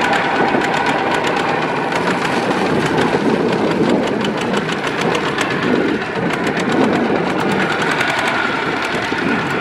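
Two-wheel hand tractor's single-cylinder diesel engine running steadily with a rapid knocking beat while it pulls a loaded trailer.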